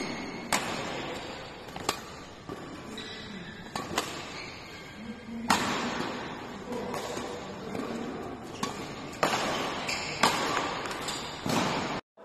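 Badminton rackets striking a shuttlecock in a fast defensive rally: sharp, irregular hits roughly every half second to two seconds, echoing in a large indoor hall.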